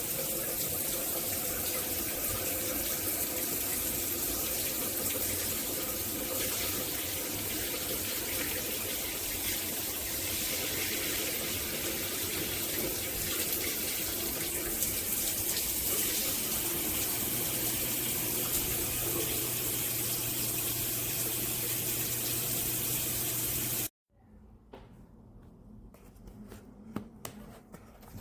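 Water spraying steadily from a pressure-boosting shower head, with a low hum joining in its last several seconds. The spray cuts off abruptly about 24 seconds in, then faint scattered clicks and taps follow.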